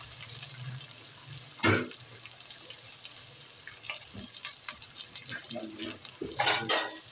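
Sliced onions frying in hot oil in a kadhai: a steady sizzle with many small crackling spits. A sharp louder knock comes about two seconds in, and a louder burst of noise near the end.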